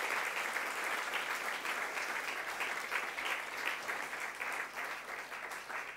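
Audience applauding, fading slightly near the end.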